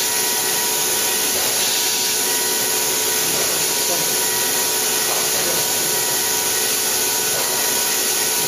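Quick Jet VL1S micro milling machine's spindle at 14,400 rpm, driving a 4 mm bull-nose end mill through a rough cut in hardened HRC52 steel: a steady high hiss with a faint whine under it.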